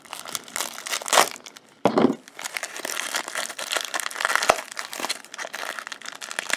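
Plastic shrink wrap crinkling and crackling as hands pull it open and off a wrapped pack of cards, with louder rustles about one and two seconds in.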